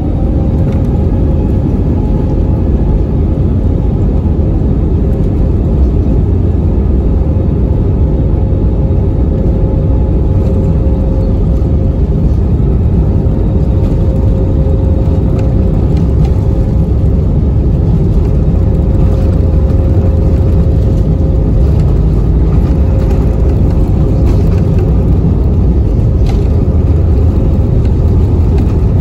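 Airliner cabin noise from jet engines: a loud, steady low rumble with a thin steady tone running above it, heard from inside the cabin.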